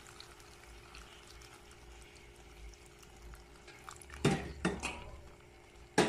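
Sausage stew with freshly added water simmering faintly in an aluminium pot. About four seconds in, a few sharp knocks and clinks of a utensil against the pot, and another near the end.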